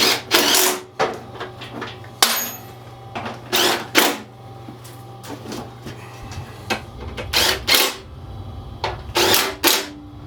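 Power drill/driver spinning down and tightening the bolts on a snowblower's belt cover, in a series of short bursts, over a steady low hum.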